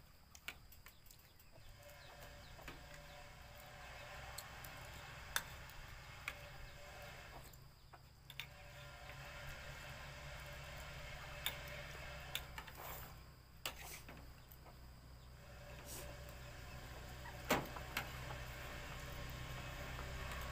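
Spoons clinking now and then against ceramic plates and bowls during a meal, over a steady low hum.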